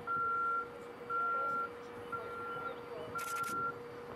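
A vehicle's backup alarm beeping: one steady high tone, about once a second, four beeps, over a fainter steady lower hum.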